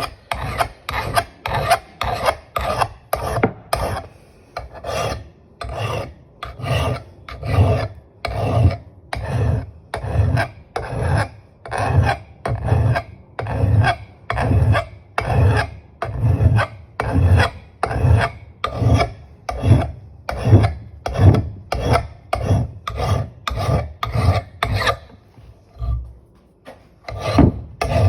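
Flat file rasping along the edge of an old rusty Kentish axe head, in steady back-and-forth sharpening strokes about two a second, with a short pause near the end.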